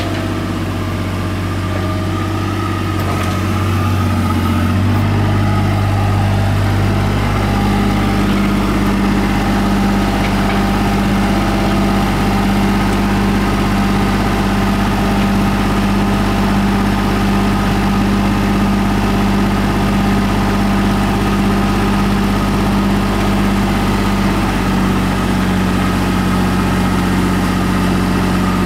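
Komatsu PC50UU mini excavator's diesel engine running as the machine travels on its tracks. The engine speed steps up about four to five seconds in and then holds steady.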